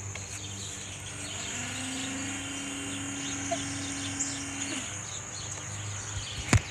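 Outdoor background with small birds chirping faintly over a steady low hum. A single steady droning tone holds for about three seconds in the middle, and a sharp click comes near the end.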